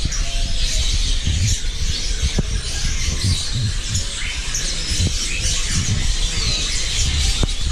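Many caged birds chirping and squawking at once in a dense, overlapping chatter, over a low rumble with a few sharp knocks.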